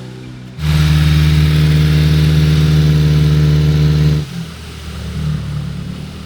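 Subaru Sambar kei truck's small engine running, with a sudden jump to a loud, steady raised-rev drone about half a second in. It holds for roughly three and a half seconds, then drops abruptly back to a quieter running note.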